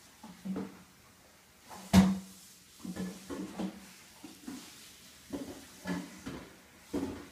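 A cat pouncing and scampering on carpet after a laser dot: a string of soft thuds from its paws landing, with one sharp knock about two seconds in, the loudest sound.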